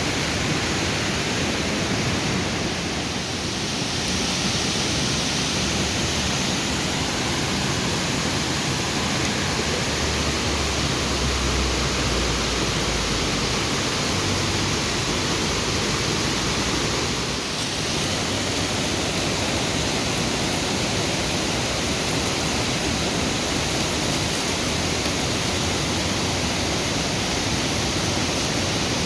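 Swollen, fast-flowing river rushing steadily: a loud, even wash of water noise with no breaks.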